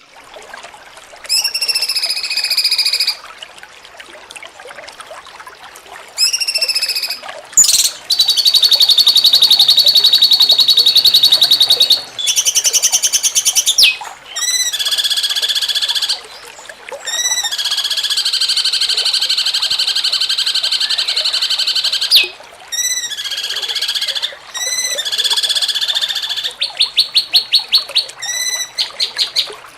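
Cucak cungkok singing: a series of loud, high-pitched phrases of rapid trills and repeated rising-and-falling notes, separated by short pauses.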